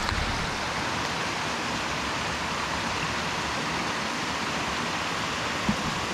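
Small mountain headwater stream running steadily over rocks and little cascades.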